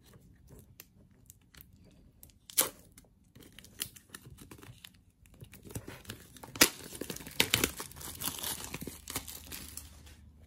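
Plastic shrink-wrap being torn and peeled off a paperback manga volume: scattered light crackles at first, one sharp tear about two and a half seconds in, then a stretch of continuous crinkling and tearing through the second half.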